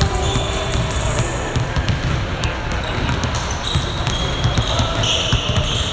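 Basketballs bouncing on a hardwood gym floor, repeated sharp thuds with no steady rhythm, with short high sneaker squeaks on the court, loudest in the last second.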